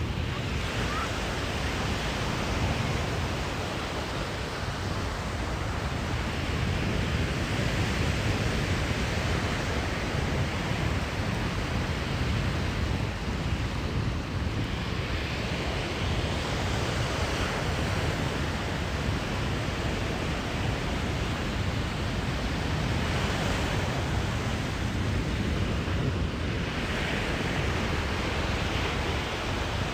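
Ocean surf washing up on a beach: a hiss that swells and fades every several seconds, over a steady low rumble of wind buffeting the microphone.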